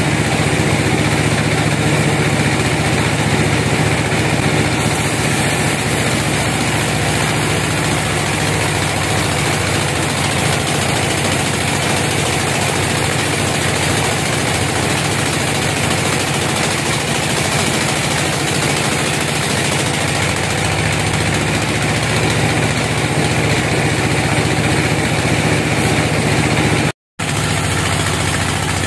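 Band sawmill running steadily as its blade cuts a slab from a teak log: a steady machine hum with the hiss of the cut, which drops out for a moment near the end.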